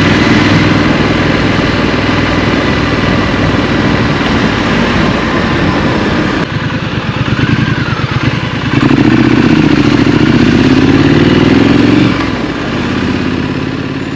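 Triumph Street Scrambler's parallel-twin engine running under way. The note falls away about six seconds in as the throttle is closed. About nine seconds in it comes back loud, climbing in pitch under acceleration, and then drops back to a lower, quieter running note near the end.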